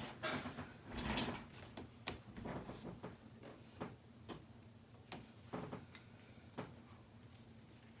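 Irregular light clicks and taps of plastic RC kit parts being handled and fitted together by hand, with some rustling near the start.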